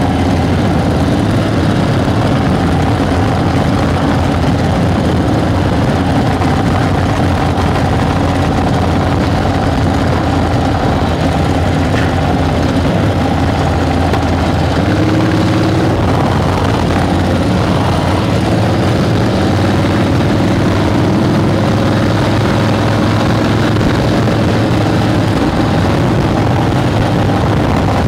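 Harley-Davidson flathead motorcycle engine running steadily under load, pulling uphill, heard from the bike along with a rushing noise. About halfway through the engine note rises a little.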